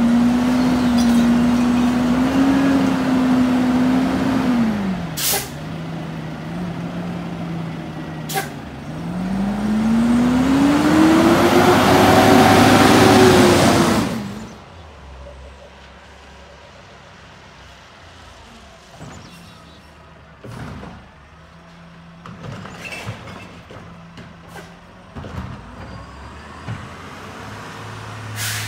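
Mack LR garbage truck's diesel engine running at raised idle while the McNeilus Curotto-Can arm works the can, dropping in pitch about five seconds in, with two short sharp sounds, then revving up in a rising whine for several seconds before stopping abruptly. After that the truck's engine is much quieter and farther off, idling and driving, with a few knocks and a short air brake hiss near the end.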